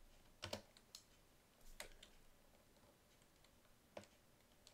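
A few isolated computer keyboard key clicks against near silence, the last one about four seconds in.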